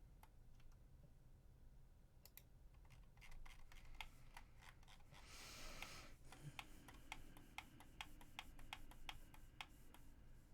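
Faint, irregular clicking of a computer mouse and keyboard during CAD work, with a brief hiss about halfway through.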